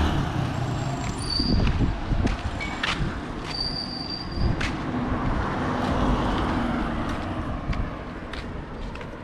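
Roadside street noise. A motorcycle engine fades out just as it starts, followed by scattered sharp clicks and ticks, with a couple of brief high chirps.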